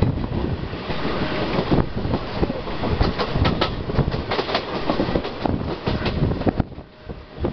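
Indian express passenger train running at speed, heard from aboard a coach: wheels clattering over rail joints with a steady rush of rolling and wind noise. The noise dips briefly near the end.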